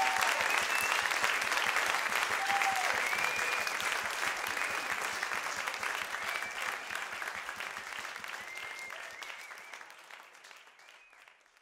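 Live audience applauding and cheering, with a few high whistles, fading out near the end.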